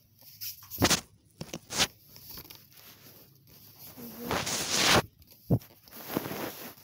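Rustling and a few sharp knocks close to the microphone, as from the recording device being handled, with a longer rushing burst about two-thirds of the way in.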